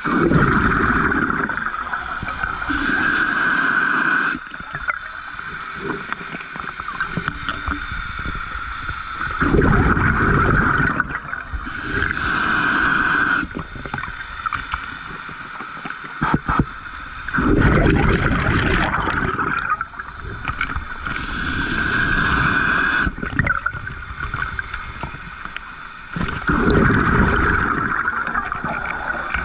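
Scuba diver breathing through a regulator underwater: a rushing, bubbling surge of exhaled air every few seconds over a steady hiss.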